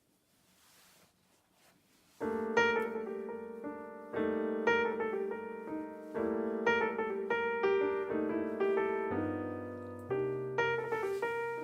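Background piano music begins about two seconds in: chords struck at a steady pace, each ringing and fading, with a lower bass line joining later.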